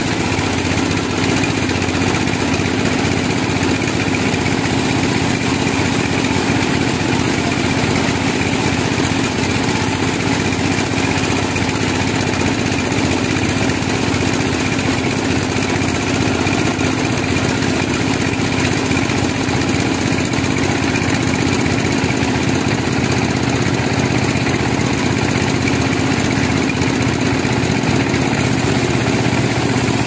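A large vertical band sawmill running steadily while it saws a log lengthwise along the carriage. It gives a continuous machine hum with a steady higher tone over it, unbroken throughout.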